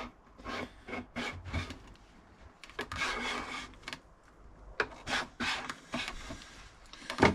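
Irregular rubbing and scraping strokes against the wooden dresser's surface, some short and one longer about three seconds in, as material is worked off the finish by hand.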